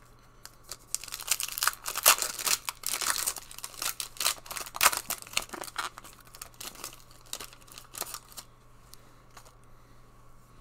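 2020 Panini Donruss football card pack's foil wrapper being torn open and crinkled by hand: a dense crackling rustle from about a second in until about eight seconds, loudest near the start and middle, then only faint handling of the cards.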